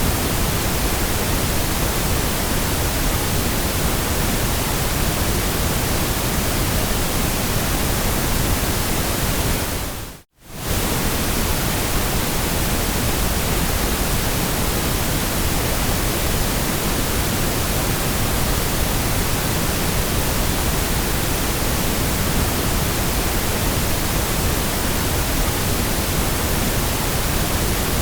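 Steady white noise: an even, unchanging hiss that briefly fades out and straight back in about ten seconds in.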